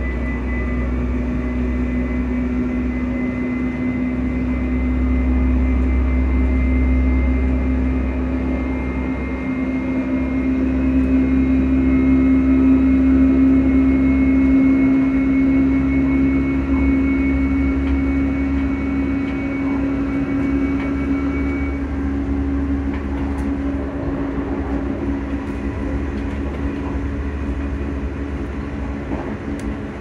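Traction cooling fans of an Alstom electric train running, heard inside the carriage as a steady low hum with a fainter high whine that fades out about three-quarters of the way through, over the low rumble of the train on the rails.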